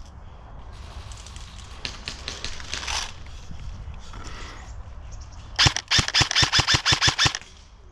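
Airsoft M4 rifle firing a quick string of about a dozen shots in under two seconds, about seven a second, starting a little past halfway. A fainter, quicker clatter of shots comes about two seconds in.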